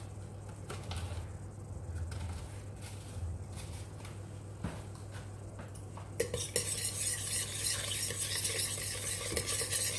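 Spoon stirring a soy-sauce marinade in a bowl. The first part is quiet with a few light clinks. About six seconds in, a brisk, steady stirring begins, with rapid clinks of the spoon against the bowl.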